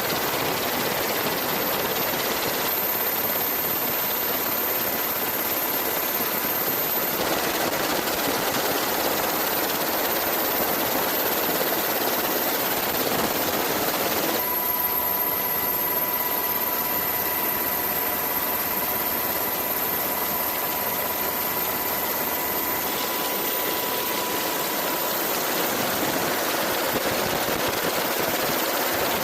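Steady engine-like mechanical noise with a faint whine, changing abruptly in character a few times.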